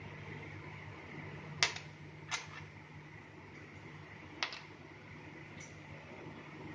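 Small plastic paint jars clicking against a hard glossy table as they are handled and set down: two sharp clicks under a second apart about one and a half seconds in, another about four and a half seconds in, and a faint one after it, over a steady background hum.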